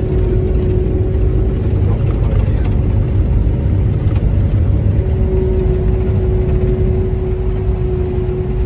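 Large diesel farm machinery running steadily at work: a constant low drone with a steady whine that grows a little stronger about five seconds in.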